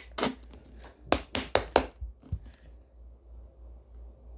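A plastic lotion bottle held upside down is shaken and squeezed to get lotion out: five or so sharp taps and clacks in the first two seconds, then near quiet as the lotion pours.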